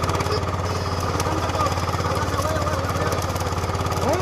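An engine running steadily with a fast, even pulse and a low hum.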